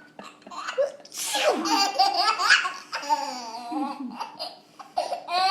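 Toddler laughing: a long, hearty fit of giggles starting about a second in, with a fresh burst of laughter near the end.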